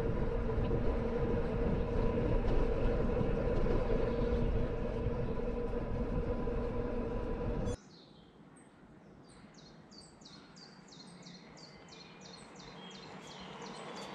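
Train running with a steady rumble and hum, cut off abruptly about eight seconds in. Then a quieter background where a bird sings a quick series of short, repeated falling notes, about three a second.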